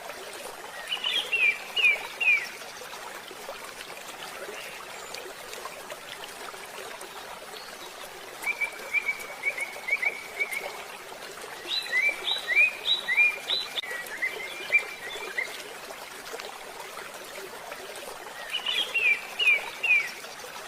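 A songbird singing four short phrases of quick, falling chirps, the longest in the middle, over a steady background hiss.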